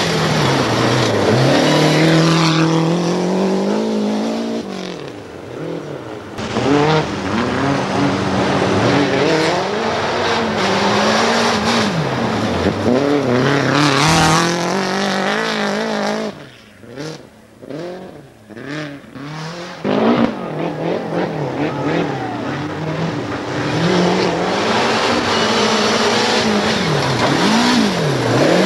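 Group A rally cars with turbocharged four-cylinder engines (Lancia Delta Integrale, Toyota Celica GT-Four) passing at full speed on a gravel stage. The engines rev up and drop back through gear changes while the tyres spray gravel. For a few seconds past the middle it goes quieter, with sharp cracks, before the engines come back loud.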